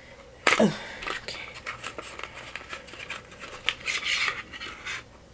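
A toothbrush's cardboard-and-plastic packaging is pulled open by hand, crinkling, clicking and tearing in irregular bursts. About half a second in comes a brief voice sound falling in pitch, the loudest moment.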